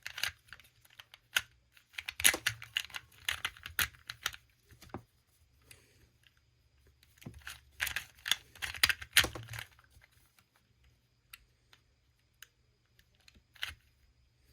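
Plastic 2x2 Rubik's cube being turned by hand: rapid clicking and clacking of its layers in three flurries, then a few scattered single clicks near the end.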